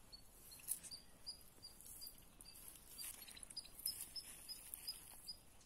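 Bare hands scraping and scooping loose sandy soil, giving scratchy rustles that come and go. Behind them, short high chirps repeat a few times a second.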